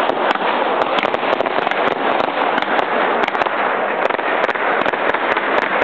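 Fireworks going off in a dense, continuous crackle of rapid pops and bangs.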